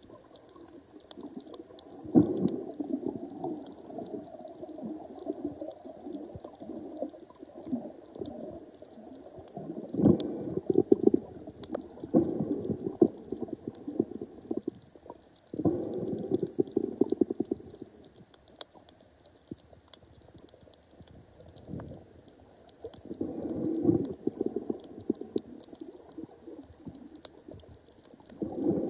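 Muffled bubbling and rumbling of sound recorded underwater, swelling in bursts of a second or two every several seconds, with faint crackling clicks throughout.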